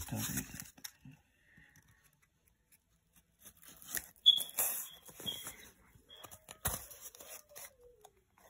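The paper facing being peeled by hand off a piece of corrugated cardboard: uneven bursts of ripping, with short high squeaks in the middle as it tears, and a single knock later on.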